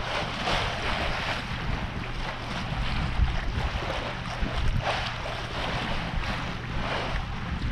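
Wind buffeting the microphone on a sailboat under way, over water rushing and splashing along the hull in irregular surges.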